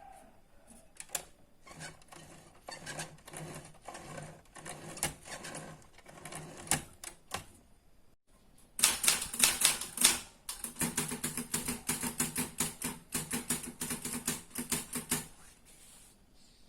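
Old rusty manual typewriter being typed on. Scattered single keystrokes come first, then about halfway through a louder run of fast typing, many keys a second, which stops shortly before the end.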